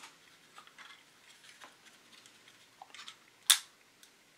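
Faint ticking and scraping of a metal hobby tool working at a styrene model car body and chassis, then one sharp plastic snap about three and a half seconds in as the parts are pried apart.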